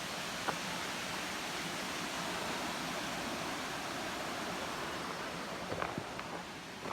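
Steady rushing of a waterfall, with a few faint taps near the end.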